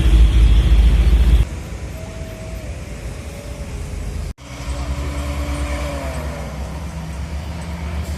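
Road traffic with large vehicles passing close by: a heavy low rumble that cuts off abruptly, then engine notes sliding down in pitch as vehicles go by, in short spliced-together clips.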